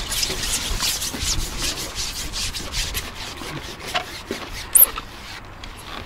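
Irregular rubbing and scraping close to the microphone, many short strokes in a row, ending with a sharp click about five seconds in.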